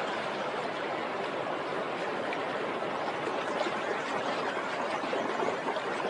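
Steady splashing and rushing of shallow water as a dog wades through it.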